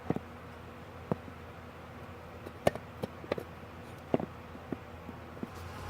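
Scattered light clicks and taps, about a dozen at irregular intervals, over a faint steady low hum.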